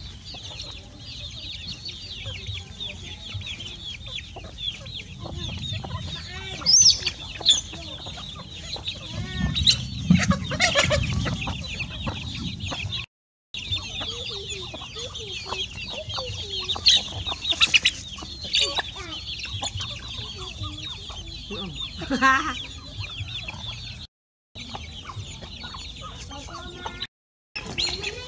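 A small flock of chickens, mostly half-grown chicks with a few adult birds, calling around the yard: a steady chorus of many short high cheeps with louder clucks every few seconds. The sound cuts out briefly three times.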